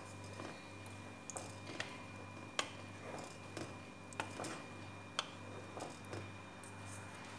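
Wooden spoon stirring thick yogurt sauce with dumplings in a pot, with faint, irregular knocks of the spoon against the pot. A low steady hum runs underneath.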